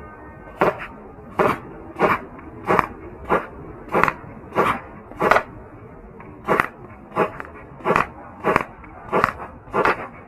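Red Jacket CO2 airsoft pistol fired in rapid succession: about fourteen sharp shots roughly 0.6 s apart, each with a fainter second click just after it, and a pause of about a second halfway through.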